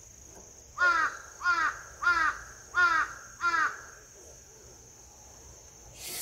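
A crow cawing five times, the caws evenly spaced about two-thirds of a second apart, each one falling in pitch. A short rushing noise rises near the end.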